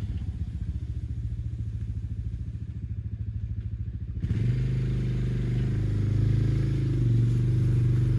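Four-wheeler (ATV) engine idling with an even pulse, then the throttle opens about four seconds in and the engine runs louder and steadier under load as the plow blade starts pushing.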